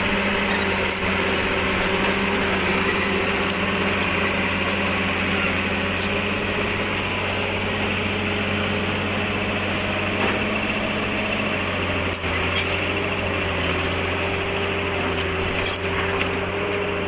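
Excavator's diesel engine running steadily under work, with scattered sharp clicks and snaps in the second half.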